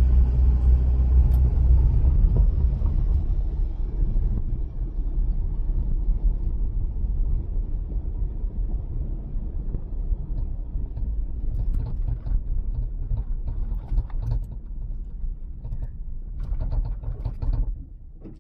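Car driving, heard from inside the cabin: a steady low rumble of engine and road noise, which drops away sharply near the end.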